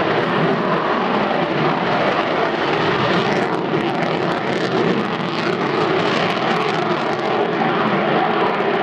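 Loud, steady jet noise from a Slovak Air Force MiG-29's twin Klimov RD-33 turbofans as the fighter flies its display overhead, with a brief crackle in the upper range a few seconds in.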